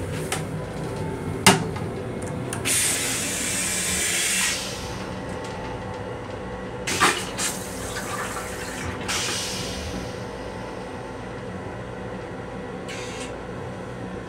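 Flush of a Metro-North M7 railcar toilet: a sharp click, then about two seconds of water spraying into the stainless steel bowl. A few clunks and a second, shorter spray follow a few seconds later, over the car's steady low rumble.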